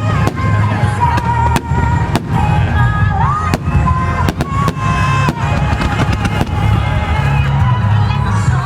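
Fireworks going off in quick succession, a dozen or so sharp bangs and cracks, over music with held melody notes and a steady bass.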